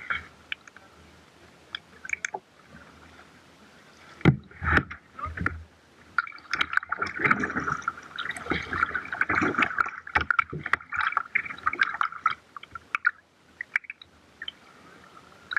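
Kayak on the water: splashing and gurgling water with scattered clicks and a few low knocks about four seconds in, and a busier stretch of sloshing water in the middle.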